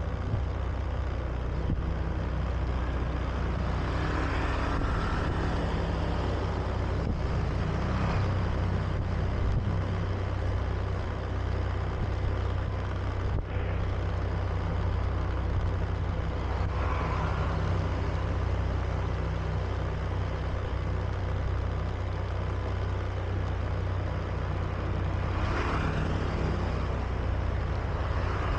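Honda Beat scooter's single-cylinder engine running at a steady riding speed, a continuous low hum under a rush of wind and road noise on a body-worn camera's microphone, with a few brief swells of noise.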